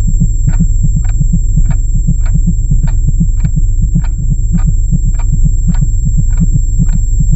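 Background music: a pulsing bass line under a steady beat, a sharp hit a little under twice a second.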